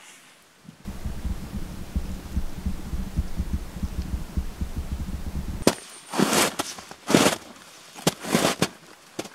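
A low, fluttering rumble of wind buffeting the microphone for several seconds. Then boots crunching through snow, a step about every second.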